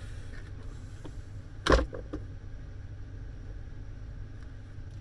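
A sharp knock about a second and a half in, followed by a lighter one, over a steady low hum.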